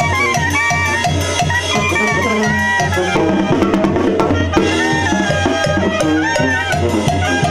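Live Mexican banda music: clarinets and brass playing the melody over a pulsing tuba bass line, with tambora bass drum, snare and cymbal keeping the beat. The drumming is densest around the middle.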